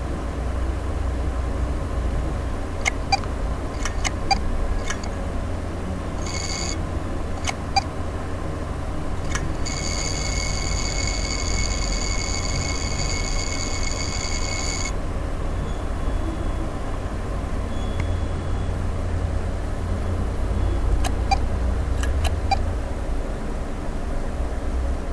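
WD 1 TB external hard drive making an abnormal noise, a sign of a fault in the drive. Irregular sharp clicks sound over a steady low hum, and a high whine comes in briefly and then runs for about five seconds in the middle.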